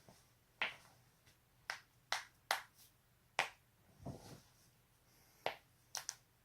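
Joints cracking: about nine sharp pops at uneven intervals, one about four seconds in lower and duller than the rest.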